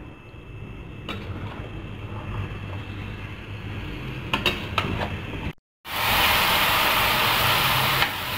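Metal spoon stirring raw chicken pieces in a kadhai, clinking against the pan a few times. After a sudden cut about five and a half seconds in, chicken fries in hot oil with a loud, steady sizzle.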